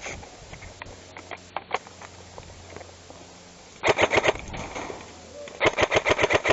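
Airsoft guns firing two rapid full-auto bursts, each a fast string of sharp cracks, the first about four seconds in and the second near the end, with a few scattered clicks before them.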